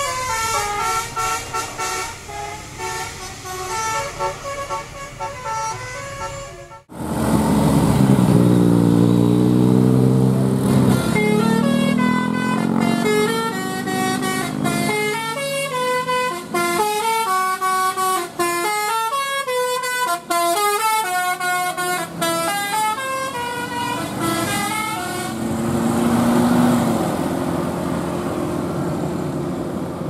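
Basuri telolet horns on passing tour buses play quick melodies of stepped notes, tune after tune. After a sudden cut about seven seconds in, a bus engine pulls loudly for a few seconds, its pitch falling and rising. Then the horn melodies start again.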